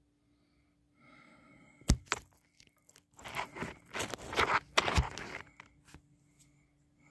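Handling noise from a phone being moved by hand: a sharp click about two seconds in, then a couple of seconds of scraping and rubbing with a knock near the end of it.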